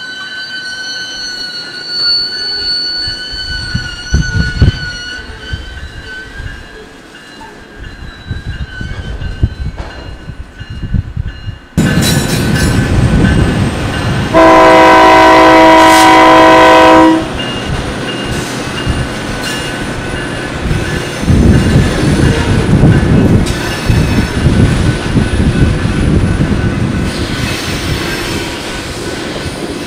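Slow-rolling freight car wheels squealing steadily in high tones. About twelve seconds in, a diesel genset switcher locomotive sounds one long horn blast of about three seconds, a chord of several notes, and moves hopper cars over a road crossing with a rumble and clicking wheels.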